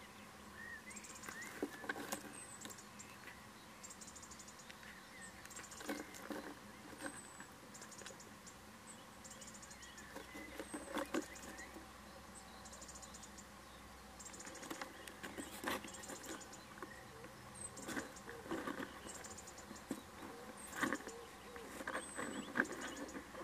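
Little owl moving about inside a wooden nest box: irregular scratching, scuffing and knocking as its claws and body shift over the floor litter, with the loudest bumps near the middle and towards the end. Faint short high chirps repeat steadily in the background.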